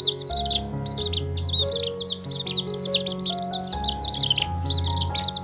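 Many birds chirping at once, a dense run of quick, high, downward-sliding chirps overlapping one another, over background music with sustained notes.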